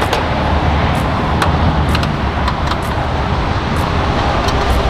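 Nissan Patrol Y61's 2.8 turbodiesel running, a steady low rumble under an even wash of noise, with scattered light clicks and rattles.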